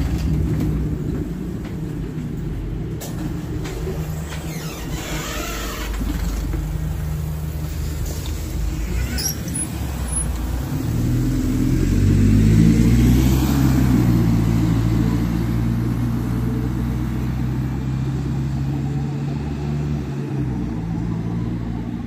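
Alexander Dennis Pointer Dart single-deck bus thrashing hard as it pulls away and accelerates: the engine note climbs and steps back at each gear change. A high, vacuum-cleaner-like 'hoovering' whine rides over it. The sound is loudest about halfway through, then fades as the bus draws away.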